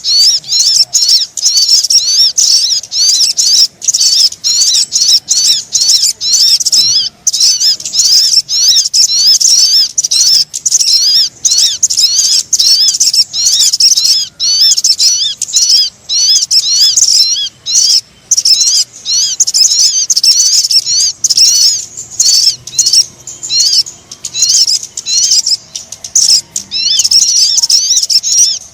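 Sogon bird-lure recording: a fast, unbroken stream of high chirping calls with only brief pauses. It is the kind of call played to draw wary birds down to a trap.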